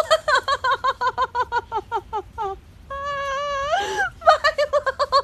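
A voice making fast runs of short pitched calls, about eight a second, broken by a long held call that rises at its end about three seconds in.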